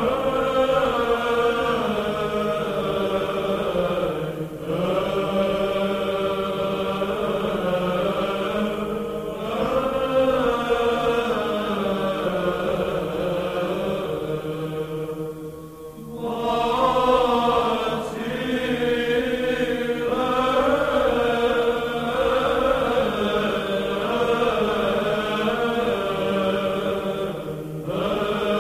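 Byzantine (Greek Orthodox) liturgical chant: voices singing long, slowly moving melodic phrases with short breaks between them.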